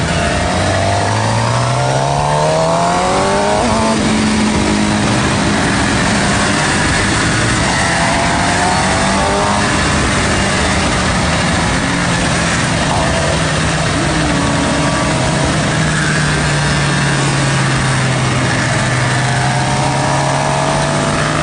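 Sport motorcycle engine accelerating, its pitch rising for the first few seconds, then running steadily at highway speed before revving up again near the end, under heavy wind rush on the microphone.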